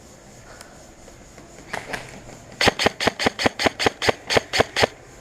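Airsoft gun firing a quick string of about ten semi-automatic shots, roughly four or five a second, in the second half, after a couple of fainter clicks.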